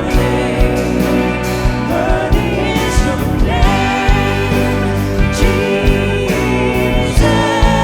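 Worship band playing a Christian song with singing over a steady drum beat.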